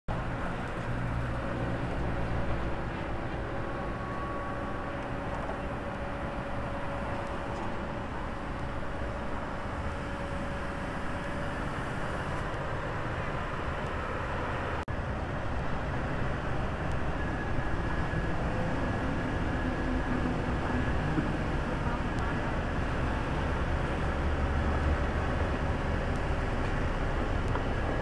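Kobelco SK200 crawler excavator's diesel engine running steadily as the arm lifts and swings a concrete box culvert section on a strap. Its tones shift as the work goes on, with a brief break about halfway.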